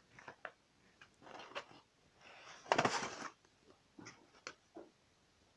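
Handling noises as small items are picked up and moved about: scattered light clicks and knocks, with a louder rustling clatter about three seconds in.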